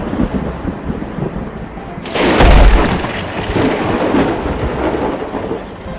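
Cartoon thunder sound effect: a loud thunderclap about two seconds in, with a deep rumble that rolls away, over a steady hiss.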